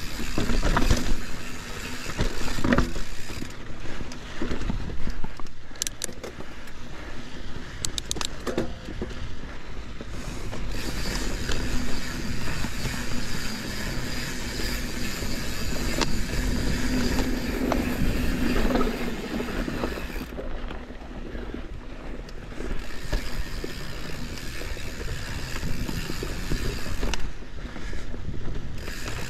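Santa Cruz 5010 mountain bike rolling along dusty dirt singletrack: steady tyre noise on the dirt, with scattered clicks and rattles from the bike over bumps.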